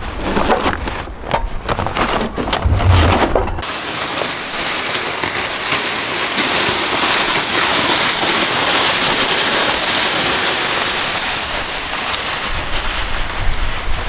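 Rustling and clacking of bags being strapped onto a sled, with wind rumbling on the microphone. Then, after about three and a half seconds, a steady hiss of a loaded sled being dragged on a tow rope across snow, loudest about nine seconds in as it passes.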